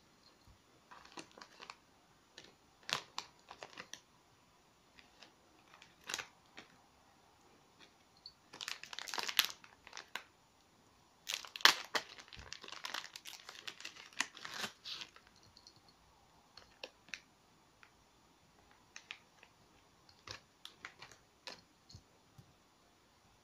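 Anti-static plastic bags crinkling as LED dot-matrix modules are handled and slid out of them, with scattered light clicks and taps of circuit boards and cables set down on a table. The longest crinkling comes about a third of the way in and again around the middle.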